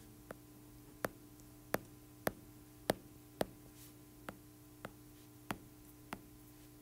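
A stylus tip tapping on a tablet's glass screen, about a dozen sharp taps roughly half a second apart as electron dots are drawn one by one, over a faint steady hum.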